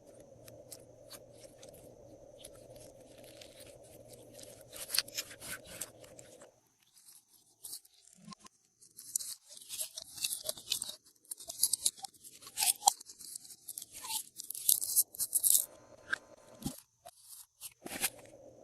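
Glossy slime being worked by hand with mixed-in bits, crackling and crunching in quick sticky bursts that grow denser in the second half. A faint steady low hum stops about six seconds in.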